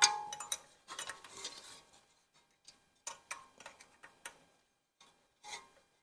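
Metal hand tools clinking against metal while parts are unbolted: one ringing clink at the start, then scattered light clicks and taps.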